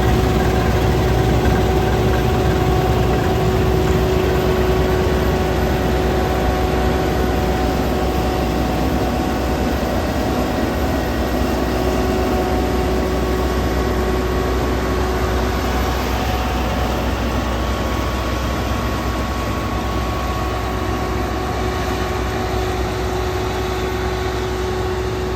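Deutz-Fahr combine harvester running steadily, a dense machine rumble with a few steady whining tones over it, slowly getting a little quieter.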